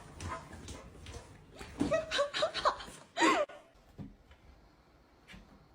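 A person laughing in a run of short bursts about two seconds in; the laughter stops after about three and a half seconds and it is much quieter after that.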